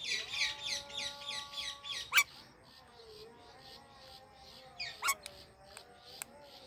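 Parakeets chirping in rapid runs of short, high chirps, about six a second, loudest over the first two seconds and again briefly about five seconds in. A sharp click sounds just after two seconds.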